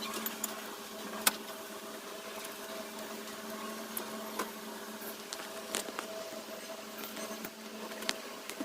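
A steady machine hum holding a few fixed tones, with scattered light clicks and taps over it.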